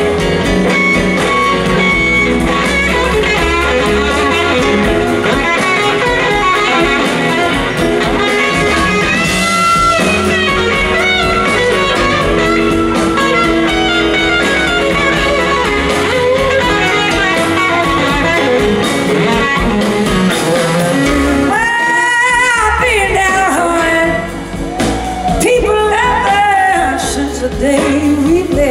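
A blues band playing live, with an electric guitar lead over bass guitar and drums in a wordless instrumental passage. The lead line bends and wavers in pitch about two-thirds of the way through.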